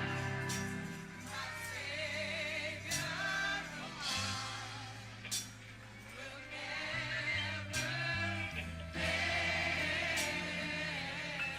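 Gospel choir singing with band accompaniment: a bass line moving under the voices and occasional drum or cymbal hits.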